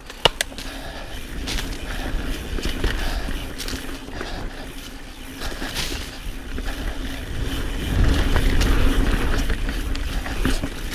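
Pivot Switchblade mountain bike ridden along a dirt trail: its Maxxis High Roller II tyres rolling over dirt and roots, with rattles and clicks from the bike and a low rumble that swells about eight seconds in.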